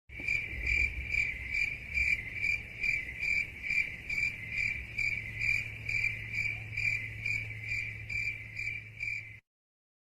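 Crickets chirping: the stock 'awkward silence' crickets sound effect. A steady run of high chirps, about two a second, over a low hum, cutting off suddenly about nine seconds in.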